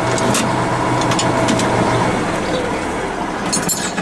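A tractor engine running steadily close by, its level easing slightly near the end, with a few light clicks over it.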